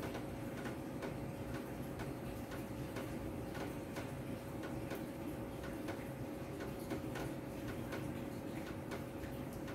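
Faint regular ticking, about two ticks a second, over a steady low hum.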